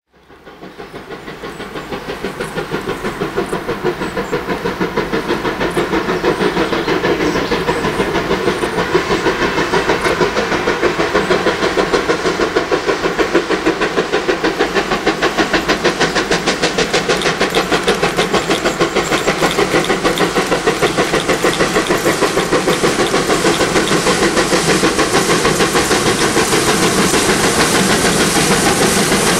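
Steam locomotive hauling a passenger train, working hard with a steady rapid beat of exhaust chuffs. It fades in and grows louder over the first several seconds as it approaches.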